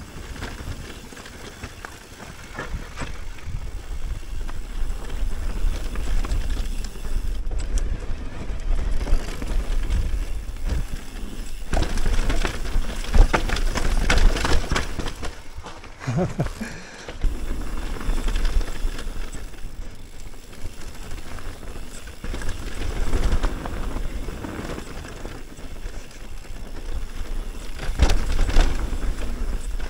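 Mountain bike ridden down a rough trail: tyres rumbling over dirt and rock, with frequent rattles and knocks from the bike and wind buffeting the action-camera microphone. It gets louder and rougher for a few seconds around the middle.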